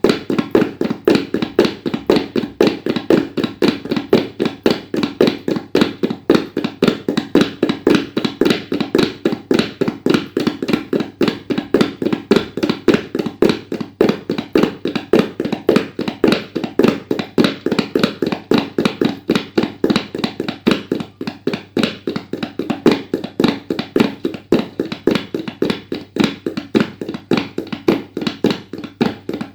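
Tabla played in a fast, unbroken stream of strokes that imitates a running horse's gallop, with louder accented strokes about twice a second.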